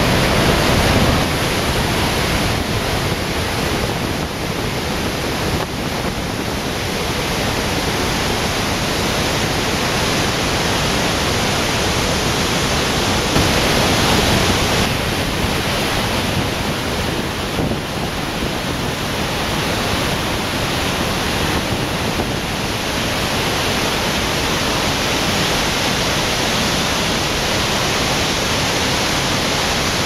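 Iguazu Falls, great cascades of water plunging over the cliffs: a loud, steady rushing of falling water with no break.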